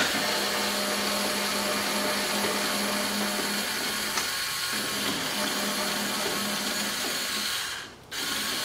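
Cordless power screwdriver running steadily for about eight seconds while backing out a T20 Torx screw, then stopping and running again briefly near the end.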